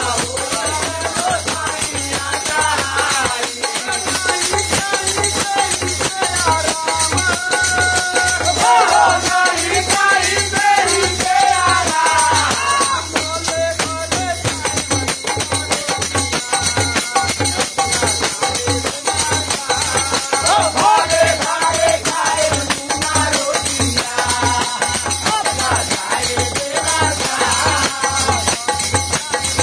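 A Holi folk song sung by a group of men, with a hand-played barrel drum, a frame drum fitted with jingles and wooden clappers with metal jingles keeping a steady, jangling beat.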